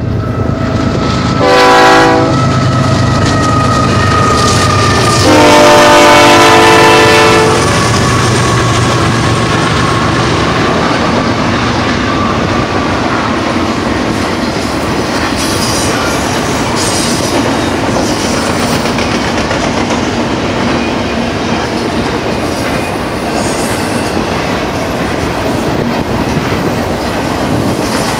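BNSF double-stack intermodal train passing, led by GE diesel locomotives. The horn sounds a short blast about two seconds in and a longer one around six seconds, over the locomotives' engine rumble. After that comes the steady rolling noise and clickety-clack of the container cars going by.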